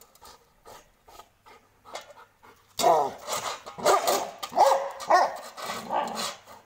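Labrador barking aggressively: a run of about six short, loud barks that starts about three seconds in, after a quiet stretch.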